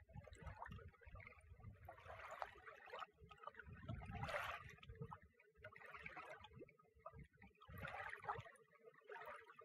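Faint, irregular lapping and gurgling of lake water in short washes every second or so, over a low uneven rumble.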